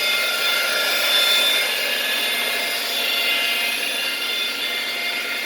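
Power tool running steadily with a high whine and a grinding hiss: a mag drill used as a lathe, spinning brass bar against a cutting tool.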